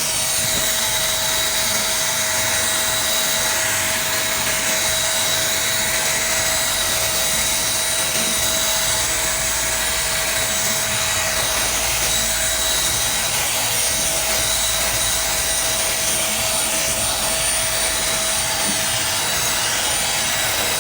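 AGARO Regal 800-watt handheld vacuum cleaner running steadily at full suction, a loud rush of air with a constant high motor whine.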